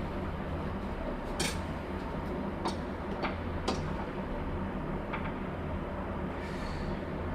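A few light knocks and clicks from goat trotters and utensils handled in a pot of boiling water, over a steady low hum.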